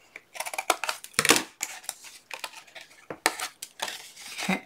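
Scissors snipping through thick cardstock in several short, separate cuts, notching the corners of a scored box blank, with the paper rustling as it is handled.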